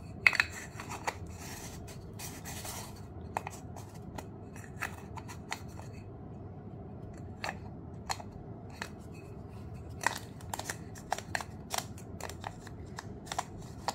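Scattered sharp plastic clicks and light handling rubs as a lens cap is worked onto a Canon 24-50 mm kit lens and pressed until it locks.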